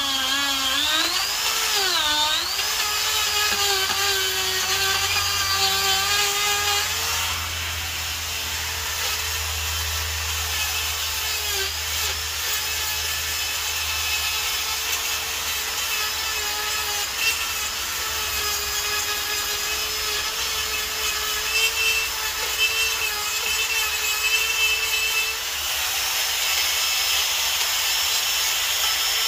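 Makita die grinder with a carving burr grinding into wood: a steady high motor whine with the rasp of wood being cut. Its pitch sags and recovers twice in the first couple of seconds as the burr bites in, then holds nearly level.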